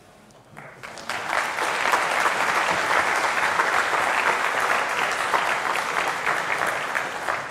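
Audience applauding: the clapping builds up about a second in, holds steady, and starts to fade near the end.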